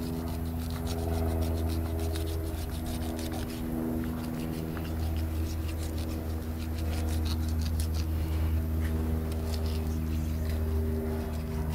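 Knife, the serrated back edge of a Dexter Dextreme fillet knife, sawing and cutting through shark flesh and cartilage, making scattered small clicks and scrapes. A steady low hum runs underneath throughout and is louder than the cutting.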